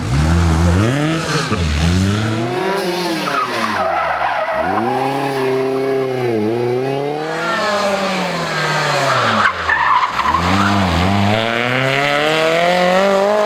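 Lancia 037 Group B rally car's supercharged 2.1-litre four-cylinder engine revving hard, its pitch climbing and then dropping sharply about half a dozen times.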